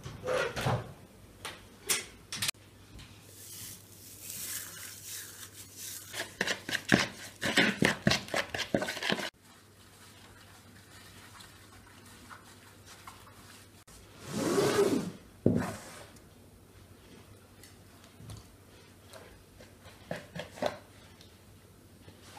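Kitchen handling sounds: a spoon clicking and scraping against a plastic mixing bowl in quick strokes as a sauce is stirred, stopping suddenly. Later come a few quieter knocks and one brief louder rub, then light clicks near the end.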